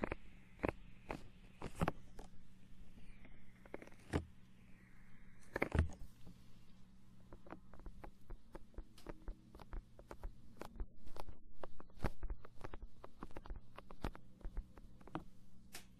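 Close-miked ASMR trigger sounds: a run of irregular sharp clicks and crackles, sparse at first and much denser from about six seconds in, over a faint low hum.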